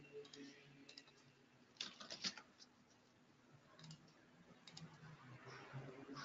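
Quiet computer-keyboard keystrokes and clicks as a search word is typed in: a few scattered taps, with a small cluster about two seconds in, over a faint steady low hum.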